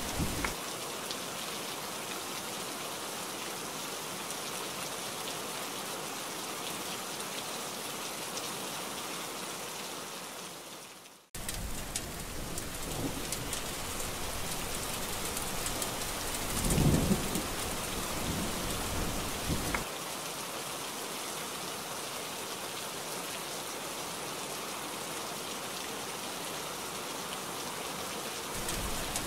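Heavy rain falling steadily. It fades out about a third of the way through and comes straight back in. A roll of thunder then rumbles for several seconds, loudest near the middle, and dies away, leaving steady rain.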